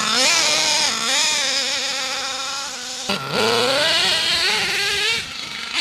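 Nitro engine of an HPI Savage RC monster truck buzzing at high revs. Its pitch drops sharply about three seconds in, then climbs again as it is throttled back up.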